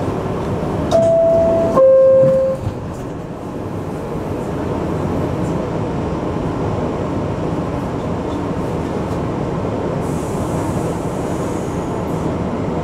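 New York City subway door-closing chime: two steady tones about a second in, the second lower than the first, each under a second long. A steady rumble of the train runs underneath.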